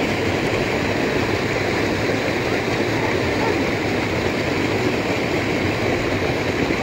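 Steady rush of a shallow rocky river, water running over stones and a small cascade.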